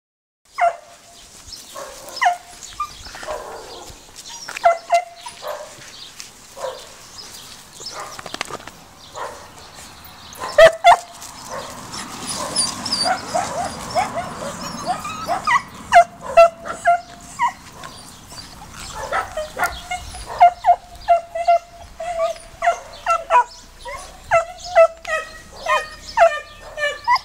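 Small dogs yapping and barking at play: scattered sharp barks at first, then rapid high yaps, several a second, in the second half.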